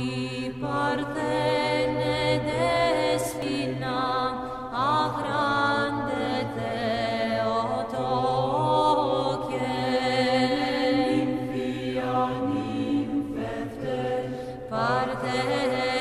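Slow vocal chant: voices sustaining a melody over a low held drone, laid on as background music.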